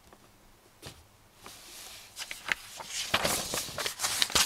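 Sheets of paper being lifted and turned over, a rustling that grows louder with crisp crackles toward the end. One small click comes before it, about a second in.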